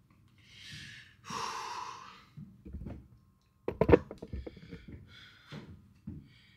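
Two short noisy breaths, then a run of knocks and clicks with one loud thump about four seconds in.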